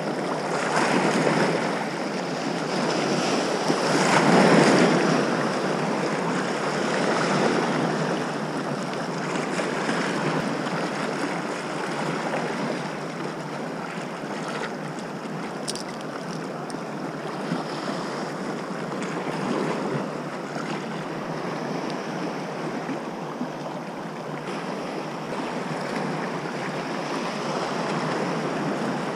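Small sea waves washing over the shallows, with wind noise on the microphone; the wash swells louder a few times in the first several seconds, most strongly about four seconds in.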